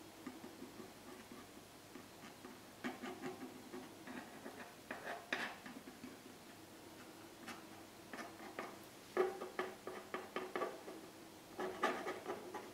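Wooden craft stick scraping and dabbing wet acrylic paint across a wooden panel, working paint into bare patches. It comes as faint, irregular clusters of short scratchy strokes.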